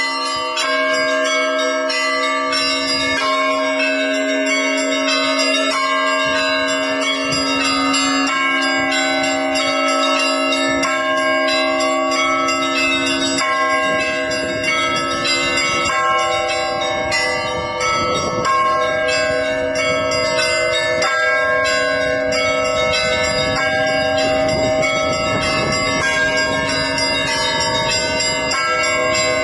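Orthodox church bells ringing in a continuous peal: a low bell hums underneath while smaller bells are struck rapidly above it, their tones overlapping.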